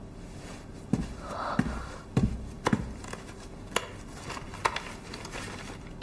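A handful of soft, irregular taps, about six spread over several seconds, with a brief faint rustle near the start.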